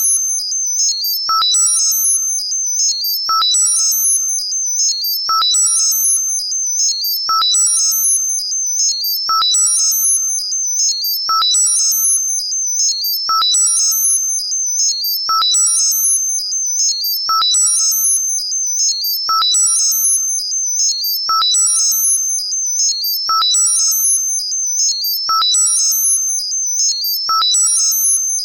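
Synthesized, modulated tinnitus-masking sound: a steady high-pitched tone, with a cluster of quick, higher electronic pips and a short lower beep repeating about every two seconds.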